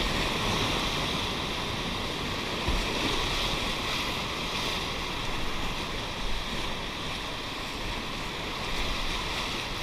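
Whitewater river rushing steadily, a continuous even wash of moving water.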